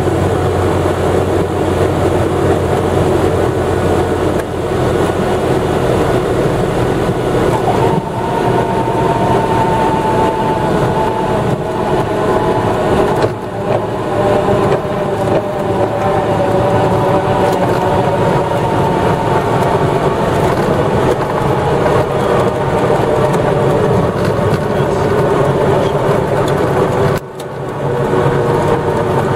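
Single-engine propeller plane's engine and propeller heard from inside the cabin during landing and rollout: a loud, steady drone whose engine tones slowly fall in pitch as the plane slows, with brief drops in level about halfway through and near the end.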